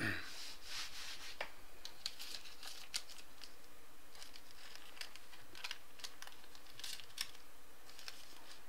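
Baseball trading cards being handled: light rustling, scraping and small irregular clicks.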